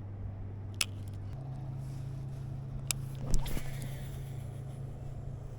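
A steady low engine hum that steps up a little in pitch just over a second in, with two sharp clicks and a brief louder knock about three and a half seconds in.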